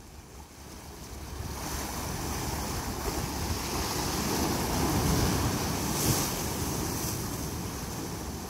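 Sea surf washing over and breaking around coastal rocks, swelling from about a second in and loudest around the middle, with wind buffeting the microphone.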